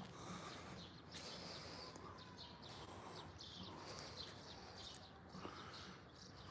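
Faint outdoor ambience with a steady run of short, high chirps and ticks.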